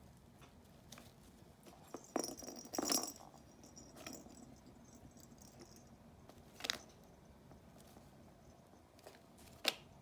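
Kitten pawing at toys in a cardboard hunting box: a cluster of knocks and a jingly rattle about two seconds in, then single sharp knocks near seven seconds and again just before the end.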